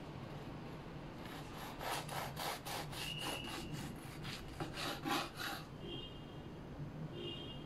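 Serrated bread knife sawing back and forth through the crust and crumb of a wholemeal loaf, a quick series of rasping strokes about four a second. It starts about two seconds in and stops after about four seconds as the slice comes free.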